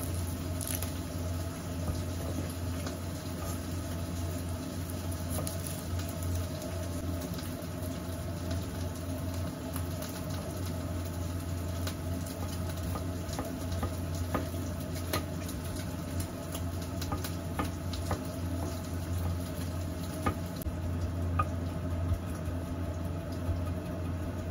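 Garlic being peeled by hand and then minced with a kitchen knife on a wooden cutting board: irregular small clicks, scratches and taps that come more often in the second half, over a steady low hum.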